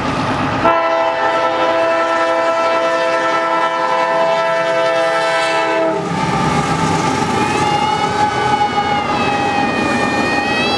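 Horn of a CSX intermodal freight train's lead diesel locomotive, sounding one long chord of several notes for about five seconds, starting under a second in. The locomotives then pass with engine rumble and wheels clattering on the rail, and a high wavering squeal rises and falls in the last few seconds as the double-stack container cars roll by.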